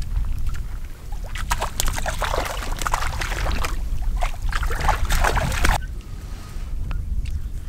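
Water splashing as a hooked trout thrashes at the surface while it is landed, over a low wind rumble; the splashing starts about a second and a half in and stops suddenly about three-quarters of the way through.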